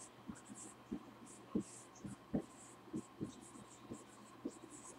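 Dry-erase marker writing on a whiteboard: a string of short, irregular squeaks and soft taps as the letters are drawn. A faint steady hum underneath.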